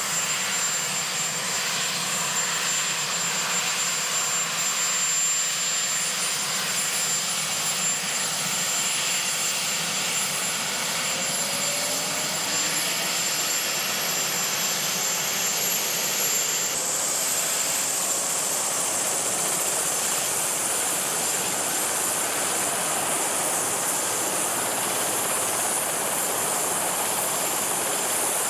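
Sikorsky VH-3D Sea King helicopter (Marine One) running on the ground with its rotor turning: a steady rush of rotor and engine noise with a thin, high turbine whine that climbs in pitch and steps up sharply about two-thirds of the way through. The engines are spooling up ahead of lift-off.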